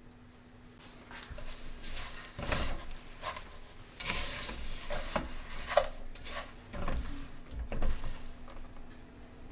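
Kitchen utensils knocking and scraping against a pot and dishes, in irregular strokes that start about a second in.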